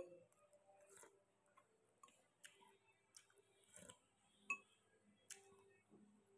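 Near silence broken by faint, irregular clicks of someone eating quietly: a spoon tapping a plate and soft mouth sounds. The sharpest click comes about four and a half seconds in.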